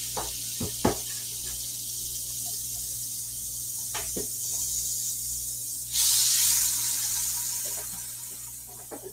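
Butter sizzling in a hot enamel soup pot, with a few light knocks against the pot. The sizzle jumps louder about six seconds in, then fades.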